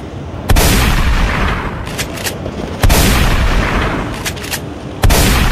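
Three heavy booming hits, each dying away over about two seconds like an explosion sound effect, with a few sharp clicks in between.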